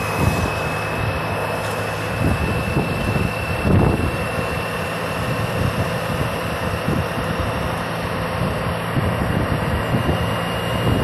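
Touring motorcycle engine running steadily while riding, mixed with wind rushing past the bike.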